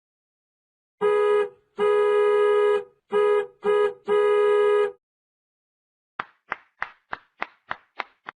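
Comedy sound effect: a steady, buzzy horn-like tone sounded five times in a rhythm of short and long blasts. After a short gap come about eight quick plucked notes, each dying away fast.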